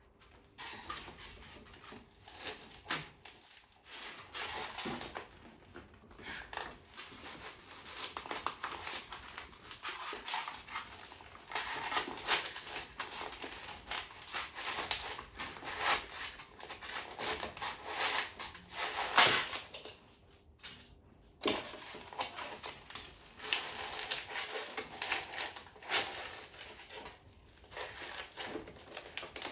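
Packaging being handled: crinkling and rustling of plastic and cardboard, with scattered clicks and knocks, the loudest about nineteen seconds in.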